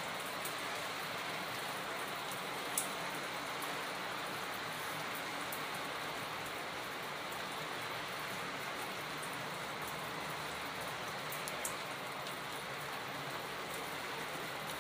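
Steady rainfall hiss, with a few sharp ticks of drops striking something about three seconds in and again near the end.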